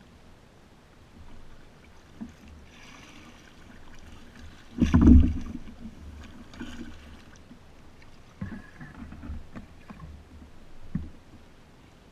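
Kayak paddling: the paddle dips and splashes, with one loud hollow thump on the kayak about five seconds in and a few softer knocks and splashes near the end.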